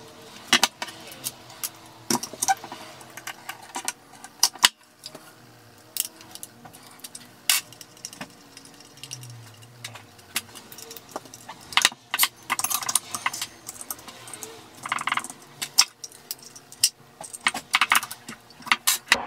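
Scattered sharp metallic clicks and clinks of an Allen wrench, the blade bolt and the blade guard being handled and set down on a wooden bench while a blade is fitted to a DeWalt Atomic 4.5-inch cordless circular saw. The clinking comes in short clusters, busiest in the second half.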